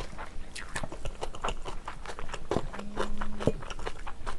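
Close-miked chewing of stir-fried Japanese sauce yakisoba noodles: wet smacking and many irregular mouth clicks. A short steady low hum comes about three seconds in.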